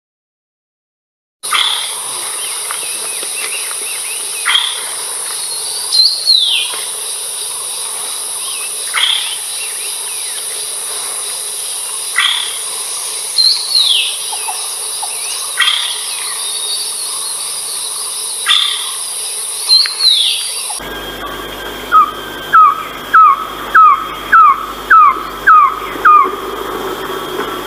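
Philippine trogon calling: a run of about eight loud, evenly spaced notes, each falling in pitch, in the last third. Before it, scattered short calls and down-slurred notes over a steady high insect drone, which stops when the recording changes about 21 seconds in.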